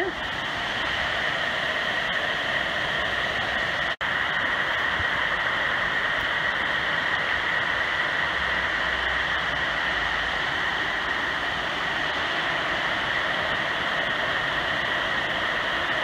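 Water rushing steadily over a small waterfall on a creek, an even, unbroken roar that drops out briefly about four seconds in.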